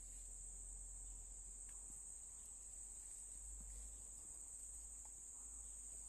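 Crickets chirring in a faint, steady, high-pitched chorus over a low rumble.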